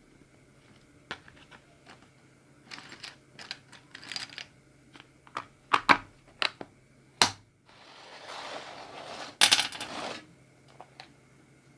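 Small hard objects being handled: a string of sharp clicks and taps, then about two seconds of rustling and crinkling with a few louder clicks in it.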